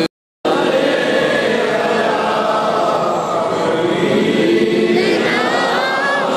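A group of men chanting zikr together, many voices singing overlapping drawn-out lines. All sound cuts out for a moment just after the start.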